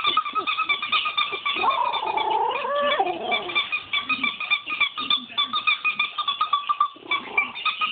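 Toy squeaker from an old dog toy squeezed rapidly over and over, giving a steady stream of high squeaks. About one and a half seconds in, the Shiba Inu joins with a short wavering howl that dips and then rises in pitch before breaking off.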